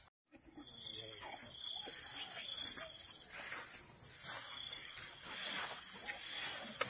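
Insects chirring in a steady, high-pitched drone, with scattered faint clicks and rustles beneath.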